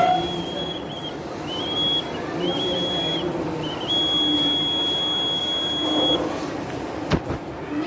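Buzzer of a student-built fire alarm model sounding a steady high-pitched tone in on-off stretches: three short ones of under a second each, then one long one of about two and a half seconds.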